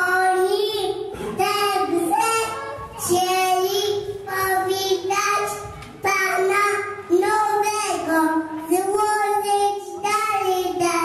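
A young child singing solo into a handheld microphone, holding each note in short phrases with brief breaks between them.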